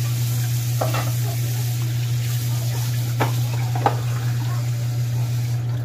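Kitchen tap running into a sink while a plastic tub and dishes are rinsed under it, with a few light knocks of the dishes about a second in and again around three to four seconds in. Under it all is a steady low hum.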